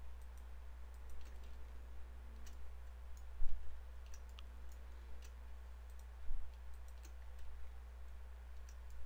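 Computer mouse clicking: scattered faint, sharp clicks over a steady low electrical hum, with two soft low thumps, one about a third of the way in and one about two-thirds in.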